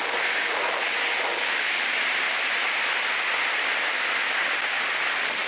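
Steady rushing jet noise of an aircraft in flight, with a faint high whine over it.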